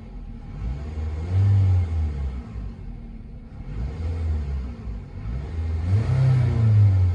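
Toyota 2AZ-FE 2.4-litre inline-four engine of a 2002 Camry blipped three times from idle, each rev rising and dropping back; the last is the highest and loudest.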